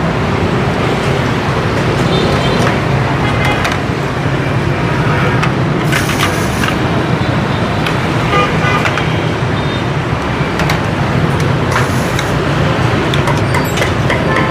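Steady hum of street traffic, motorbikes and cars passing, with scattered light clinks and knocks of dishes and utensils at a food stall.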